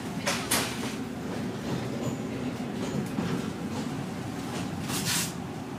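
A passenger train running along the track, with a steady low rumble. Brief hissing bursts come about half a second in and again near the end.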